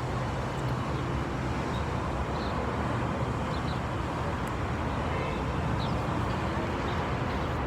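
Steady low rumble and hiss of vehicle noise.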